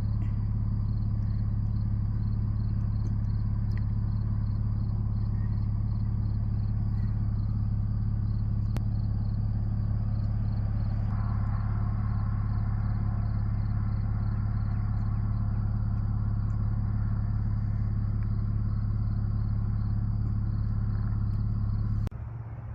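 Steady, unchanging low rumble of a motor vehicle, cutting off suddenly near the end.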